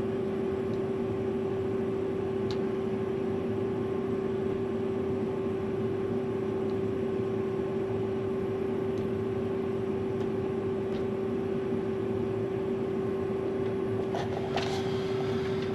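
Steady machine hum inside a combine harvester's cab, with one constant mid-pitched tone: the parked combine running. A couple of faint clicks near the end.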